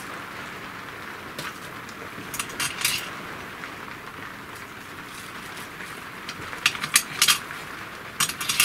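Small steel M5 screws and slider nuts clinking as they are picked up and handled: short light clicks in small clusters, about a second and a half in, around two to three seconds in, and again in a busier run near the end.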